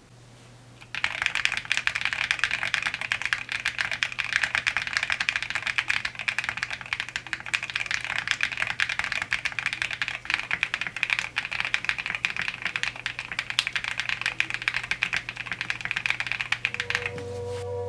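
Fast, continuous typing on a mechanical keyboard, a dense run of key clicks that starts about a second in and stops near the end. A faint low steady hum sits underneath.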